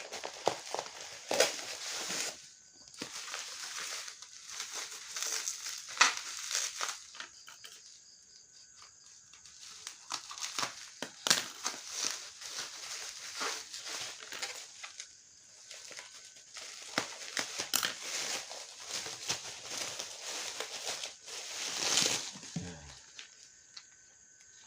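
Plastic packaging crinkling and rustling as it is handled and opened, with many sharp irregular clicks and crackles. There are quieter pauses about eight and fifteen seconds in.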